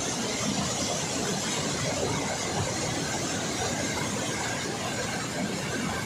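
Steady rush of water pouring through a dam's open spillway gates.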